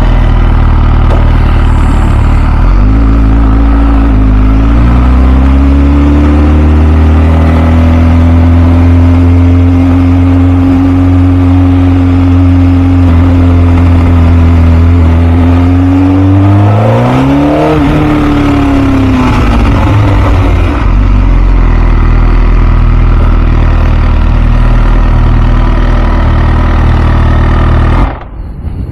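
2006 MV Agusta F4 CC's 1078 cc inline-four engine running as the bike rides at low, steady speed, its pitch holding level for long stretches with one quick rev up and down about two-thirds through. Near the end the engine is switched off and the sound stops suddenly.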